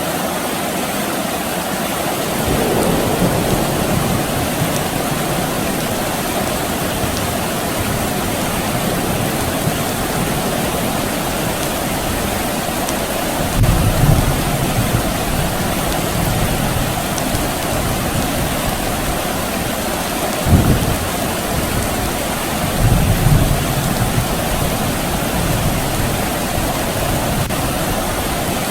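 Steady soft rain falling, with a few brief low rumbles of distant thunder in the second half.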